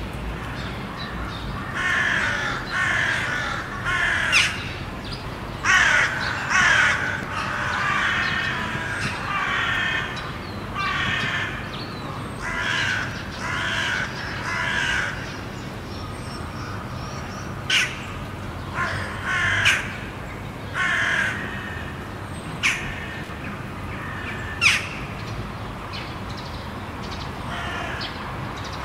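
A flock of crows cawing, many harsh calls overlapping in busy clusters through the first half, then thinning to scattered calls with a few sharp, louder single caws.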